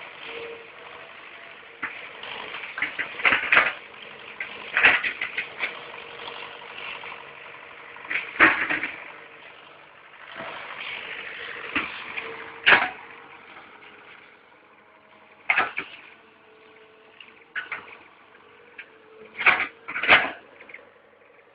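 Excavator working on soil: a steady engine hum under irregular clanks and knocks, some in quick clusters, with quieter stretches between.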